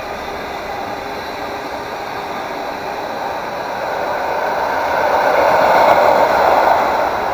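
Intermodal freight train rolling past, a steady rushing noise of wheels on rail that grows louder about five seconds in and then eases slightly.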